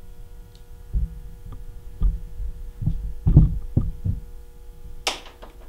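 A series of dull low thumps, about six over three seconds, from footsteps and bumps of a handheld camera being carried, over a steady electrical hum. About five seconds in comes one short, sharp rustle or scrape.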